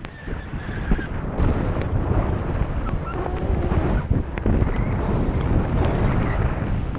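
Wind buffeting the microphone of a camera carried by a skier moving downhill, over the steady hiss of skis sliding on packed snow.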